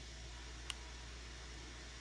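A single sharp click about two thirds of a second in, from a pair of watch hand levers lifting a hand off its post at the centre of a Seiko 6138 chronograph dial, over a steady background hiss and low hum.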